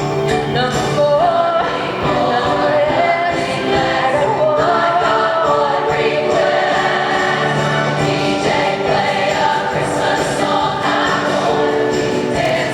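A choir singing with musical accompaniment, the voices moving through a melody over held chords.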